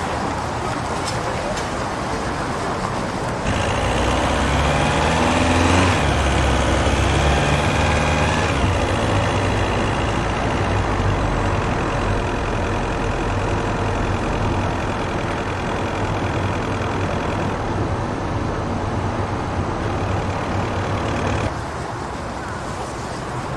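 City street ambience with motor traffic. A vehicle engine close by picks up about three seconds in, rising in pitch as it revs. It then runs steadily among the traffic noise and drops away near the end.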